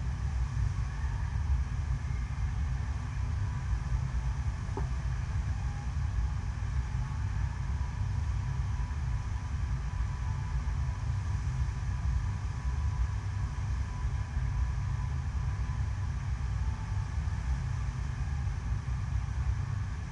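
Steady low rushing rumble of the pumped water sheet running over an artificial standing-wave surf machine, heavy in the bass and unchanging.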